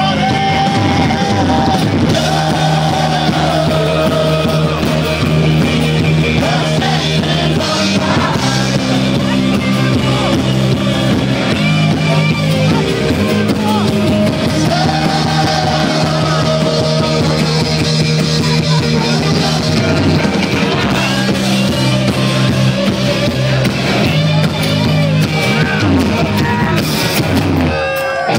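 Rock band playing live: electric guitar and bass holding steady chords that change every couple of seconds, under a singer's vocals.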